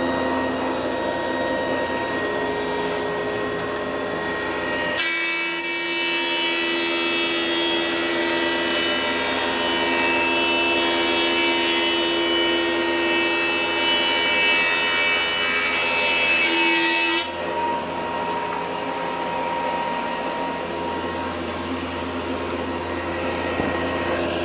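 JET 15-inch helical head planer running with freshly rotated carbide inserts, with a dust collector running too. About five seconds in, a board goes through for a light pass and the cutting makes the sound brighter and fuller for about twelve seconds, then the planer runs empty again.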